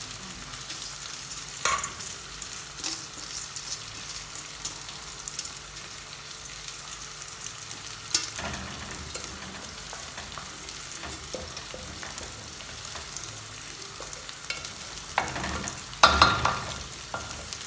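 Rice frying in hot oil with cumin in a pan, sizzling steadily while it toasts before water goes in. It is stirred, with the utensil scraping and knocking against the pan a few times; the loudest knocks come near the end.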